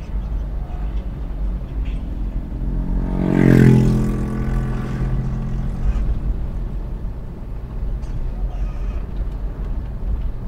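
Suzuki Carry Futura driving, with a steady low engine and road rumble. An engine note swells to its loudest about three and a half seconds in and fades over the next two seconds.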